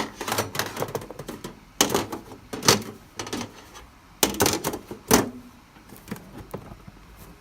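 A gift-set box lid being fitted back on and the packaging handled: a run of irregular clicks, rattles and knocks, with several louder knocks through the middle.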